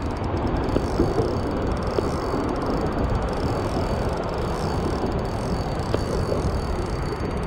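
Steady wind rumbling on the microphone, with water washing along a kayak's hull.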